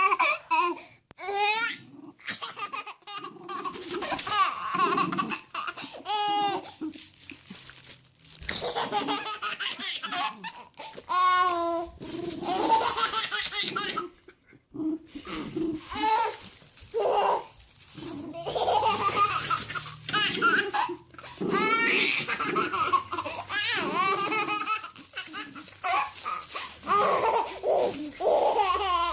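A baby laughing, in repeated bouts of high-pitched laughter with short pauses between them.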